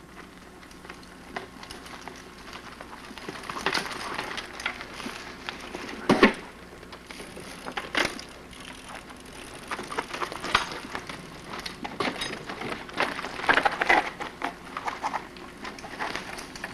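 1985-era mountain bikes rattling down a rocky, rooty trail: tyres crunching over stones and roots, with a string of sharp knocks and clanks from the bikes. The loudest knock comes about six seconds in, and more follow as riders pass close.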